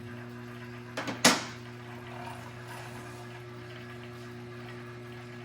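Two sharp knocks, a quarter second apart, about a second in, the second louder and ringing briefly, over a steady low hum.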